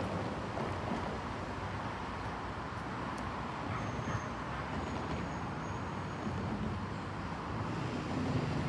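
Steady, distant rumble of a departing diesel-hauled train, with a low engine hum growing clearer near the end.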